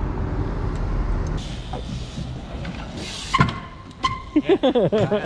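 Low traffic rumble, then a sharp knock about three and a half seconds in. Near the end comes a quick run of hops of a trials bike's rear wheel on a wooden deck, with squeaking on each landing.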